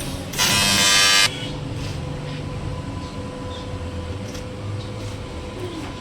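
A loud buzz lasting about a second, starting a little under half a second in, over a steady background hum.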